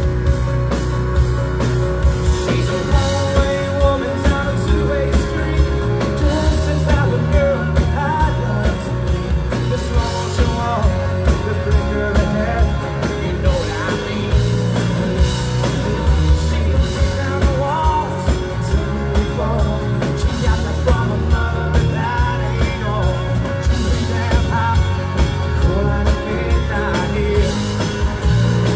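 Live rock song played by a band: a male singer sings over an acoustic guitar, with a steady beat underneath.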